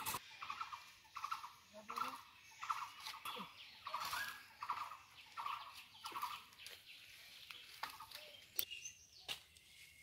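A bird repeating one short call about twice a second, stopping about three-quarters of the way through, with scattered sharp clicks and rustles.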